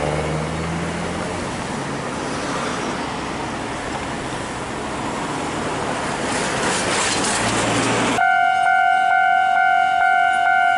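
A steady rush of outdoor noise. About eight seconds in it switches abruptly to a railway level-crossing warning alarm sounding: one steady, high electronic tone with its overtones, louder than what came before.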